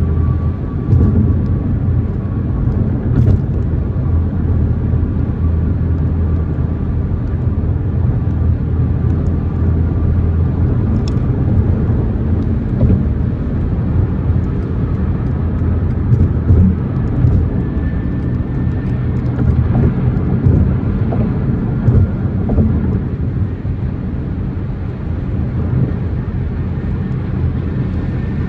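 2024 BMW M4 Competition's twin-turbo straight-six running steadily as the car drives, with road noise.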